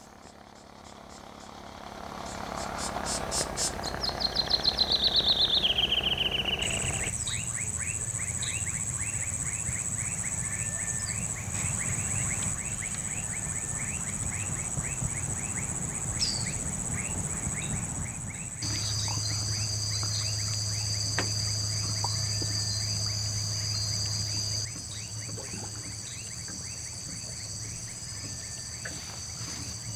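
Tropical wildlife sounds: a bird's run of quick notes falling in pitch for a few seconds, then a steady high insect drone with a fast series of short repeated calls, and later several insects holding steady high tones together.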